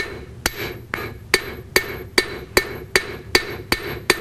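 Cross peen of a metalsmith's hammer striking a copper rod in a steady rhythm, about two and a half blows a second, each a sharp metallic strike with a short ring. The blows run across the rod, squeezing the copper out sideways as it is forged.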